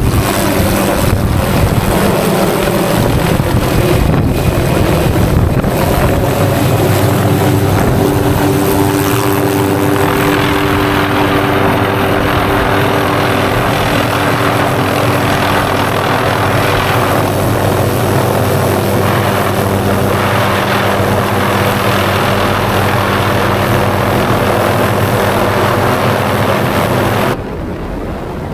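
MD 500D helicopter's turboshaft engine and rotor running, loud and steady, heard close up. Its steady engine tones shift once early on, and the sound drops off sharply near the end.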